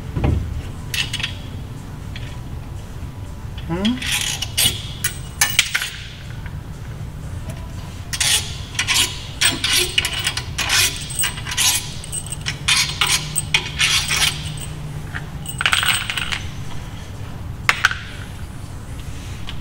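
Small metal parts clinking and rattling in irregular short clusters as the clutch pack is unbolted and removed from an Audi R8's flywheel by hand.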